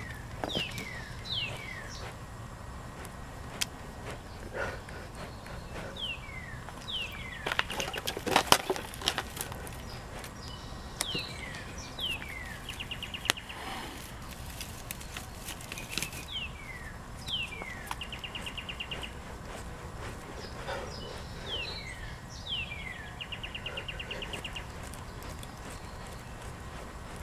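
A songbird singing at dawn: clear whistled notes that slide downward, often in pairs, repeated every second or two, broken a few times by a short rapid trill. About eight seconds in, a cluster of sharp snaps and rustling from twigs being handled at the fire.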